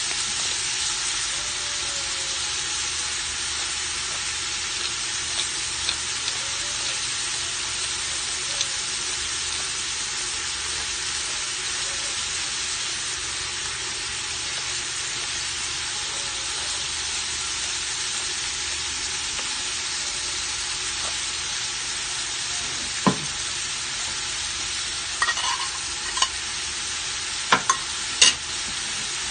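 Chicken, onion and garlic sizzling in oil in an aluminium pot: a steady frying hiss. A few sharp knocks or clinks come over it in the last several seconds.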